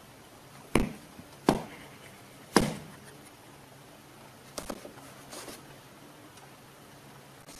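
A few sharp taps or knocks on a hard surface. Three loud ones come in the first three seconds, then some fainter taps a few seconds later.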